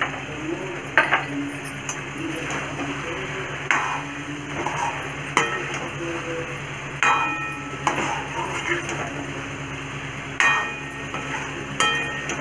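Steel spatula scraping through a thick chicken masala and knocking against a metal kadai while stirring. Several knocks leave the pan ringing briefly, about seven, ten and twelve seconds in.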